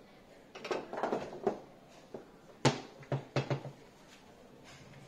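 Foosball play on a JX 125 table: the hard ball knocked about by the rod figures, with clacks of rods and ball. A single loud sharp hit comes a little before the midpoint, followed by a quick run of four knocks.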